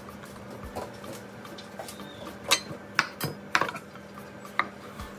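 Chef's knife and utensils knocking on a wooden chopping board as a peeled cucumber is cut lengthwise: a scatter of sharp knocks and clicks, the loudest about two and a half to three and a half seconds in and one more near the end, over a faint steady hum.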